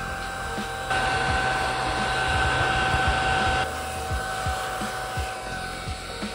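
Small battery-powered desktop vacuum cleaner, a Lotso-bear-shaped stationery gadget, running with a steady whine over a hiss as it sucks eraser crumbs off a notebook page. It gets louder about a second in and drops back down after about three seconds.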